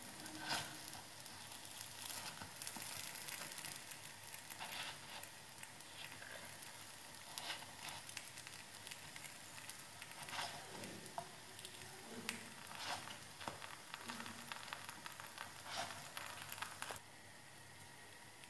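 Quiet sizzle of paniyaram batter balls frying in oil in a nonstick paniyaram pan, with scattered light taps and scrapes of a wooden skewer against the pan as the balls are turned over. The sizzle drops away suddenly about 17 seconds in.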